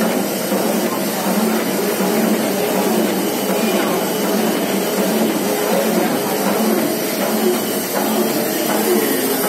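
Plastic bag-making machine running steadily as printed film feeds over its rollers past a continuous inkjet printhead, a constant even mechanical noise.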